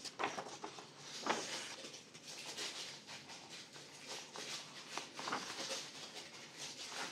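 Pages of a paperback colouring book being turned and smoothed flat by hand: soft, irregular paper rustles and brushes.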